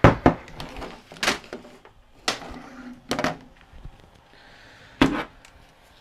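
Knocks and clunks of a VCR's metal tape-transport mechanism being handled and turned over on a workbench: about six sharp knocks, the loudest at the start and about five seconds in.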